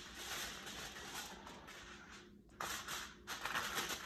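Aluminium foil crinkling and rustling as it is pressed and folded tight around the edges of a baking dish, in uneven bursts with a brief pause a little past halfway.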